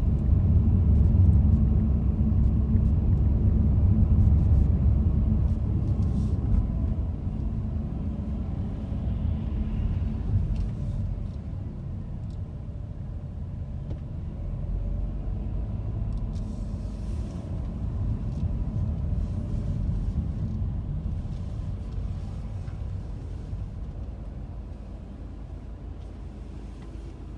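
Car driving, a steady low road and engine rumble that grows gradually quieter through the second half as the car slows.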